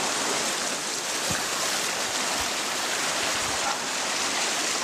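Swollen river rushing steadily: the water is running high after heavy rains. A few soft low thuds sound through it.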